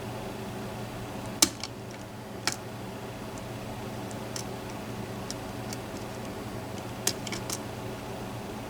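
Small metallic clicks and ticks of a lock pick and tension wrench working the pins of a four-pin challenge lock. They come singly at uneven intervals, the sharpest about a second and a half in and a quick cluster near the end, over a steady low hum.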